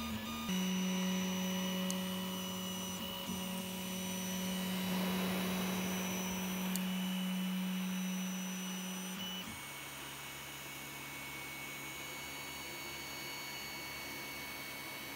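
Tevo Tornado 3D printer's stepper motors whining at a steady pitch as the print head traverses a long bridging move; about nine and a half seconds in, the tone drops to a lower steady pitch as the motion changes speed.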